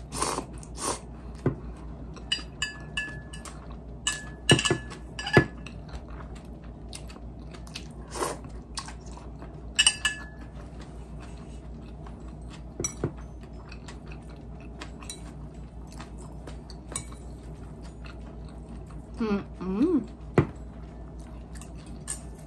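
Close-up eating sounds of soba noodles being slurped and chewed, with scattered light clicks of chopsticks against a ceramic dipping bowl.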